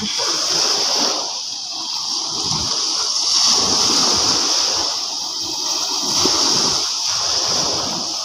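Shallow seawater splashing and washing, swelling and easing every second or two.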